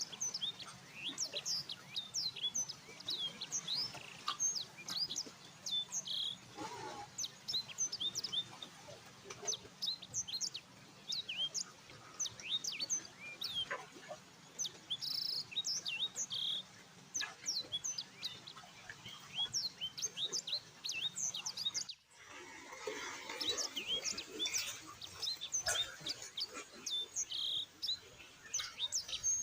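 A flock of small birds chirping continuously, a dense chorus of short, high, downward-slurred chirps. There is a brief break about 22 seconds in, then the chirping carries on.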